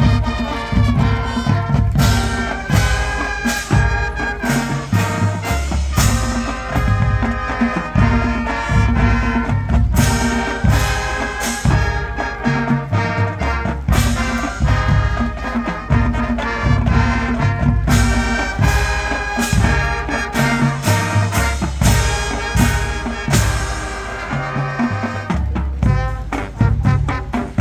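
High school marching band playing its field show: brass melody and chords over a drumline beat, with frequent sharp percussion hits.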